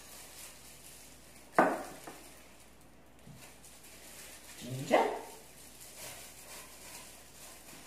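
A dog barking twice, two short single barks about three seconds apart.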